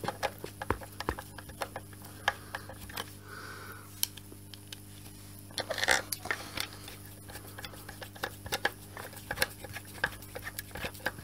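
Small clicks and taps of a screwdriver and metal parts being handled against a vacuum cleaner's aluminium casing, with a quicker run of louder clicks about six seconds in.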